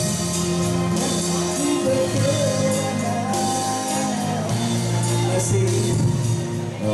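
Live band music at a steady level: a man singing over keyboard and instrument accompaniment, holding long notes.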